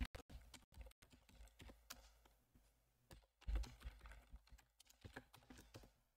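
Faint typing on a computer keyboard: irregular keystrokes, with a louder cluster of keys about three and a half seconds in.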